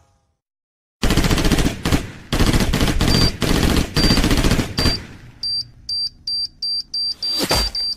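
War sound effect: machine-gun fire in fast, dense bursts for about four seconds after a second of silence. It gives way to a run of short, high electronic beeps that merge into a steady tone, with a heavy thud near the end.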